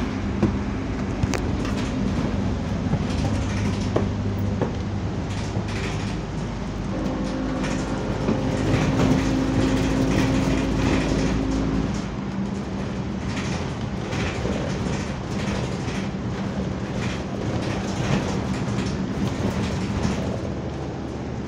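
Scania double-decker bus heard from inside while driving: a steady hum from the engine and its cooling fan, with interior panels rattling and clicking. About a third of the way in a stronger whining tone swells for some five seconds, then drops away suddenly.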